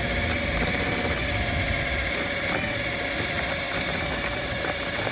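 Electric drilling machine running steadily at near full speed, its motor whining as it drives a propeller in the water.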